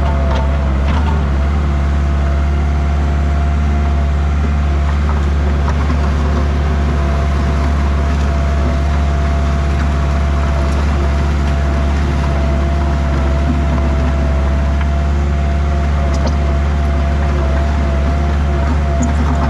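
A large engine running steadily at a constant speed: an unbroken low drone with a thin steady whine above it.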